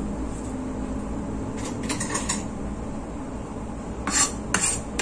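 Kitchen handling on a wooden cutting board: a ceramic bowl and a plastic scraper make a few soft clicks about two seconds in, then three short scraping strokes near the end, over a steady low hum.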